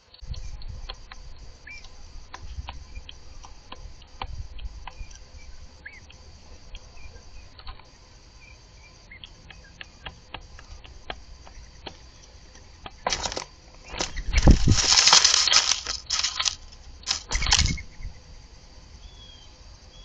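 Mourning doves pecking at seed in a cardboard tray, with many small scattered clicks. Between about 13 and 18 seconds in come several loud whooshing flutters, dove wings flapping close to the microphone.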